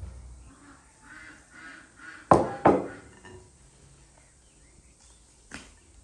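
Dough being kneaded by hand in a glass bowl, with two loud sharp knocks in quick succession a little over two seconds in and a softer knock near the end.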